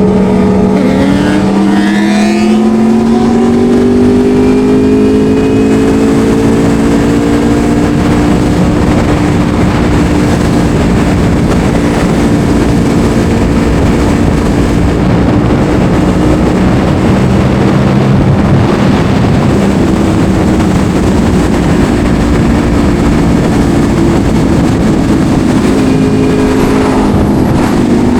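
Yamaha R1's inline-four engine under way: its pitch climbs steadily over the first several seconds as the bike accelerates, then holds at a cruise under a steady rush of wind and road noise.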